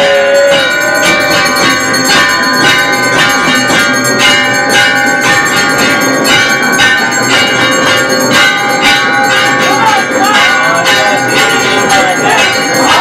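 Temple bells struck rapidly and without pause, many ringing tones overlapping into a continuous clangour. Voices show faintly through it near the end.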